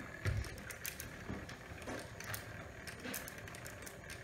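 Battery-powered tornado-in-a-bottle toy running, with irregular clicking and rattling from its motor and plastic housing as the water-filled cylinder is handled. A soft low thump about a third of a second in.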